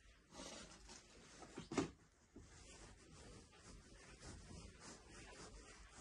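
Quiet room with faint rustling movement noise and one brief thump just under two seconds in.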